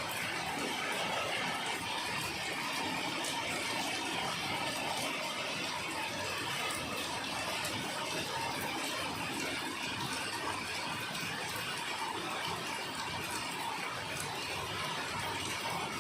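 Steady rain falling: an even hiss with occasional faint ticks of single drops.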